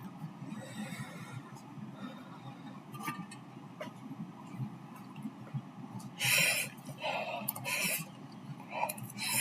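A person eating spicy noodles: quiet small mouth clicks, then from about six seconds in a run of four or five short, hissing mouth sounds.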